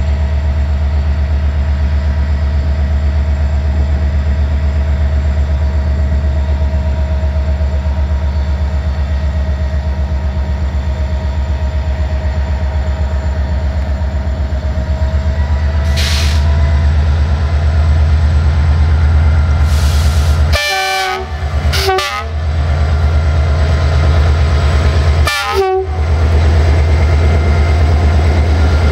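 060-DA (LDE 2100) class diesel-electric locomotive running with a loud, steady deep drone as it stands and then pulls its passenger train forward; it grows a little louder in the second half.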